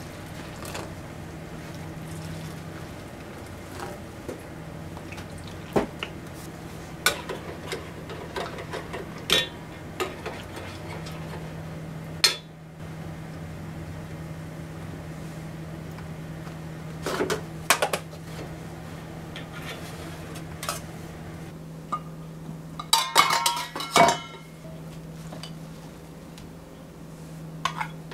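Stainless steel bowls and utensils clinking and knocking now and then as food is handled, with a quick run of clinks late on, over a steady low hum.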